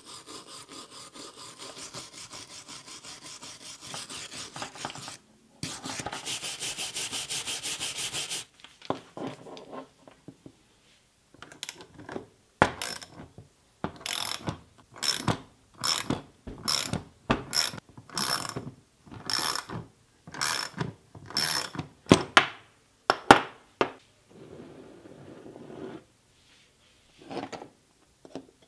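Scrubbing strokes of a brush on a small drill motor, steady at first and then faster and brighter. Then, for about twelve seconds, a ratchet handle clicks in repeated sharp strokes, less than a second apart, as it turns a puller's screw to draw the chuck off its geared spindle.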